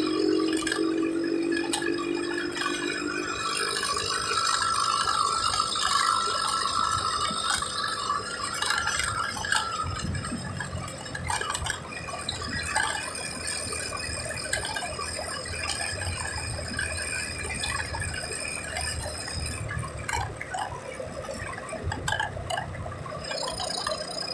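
Cabin noise of a moving car: road and engine noise with loose parts rattling in the cabin.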